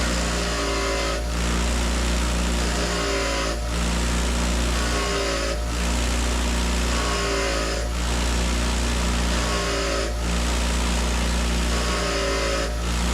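A machine running steadily with a low hum, its sound dipping briefly and building again about every two seconds.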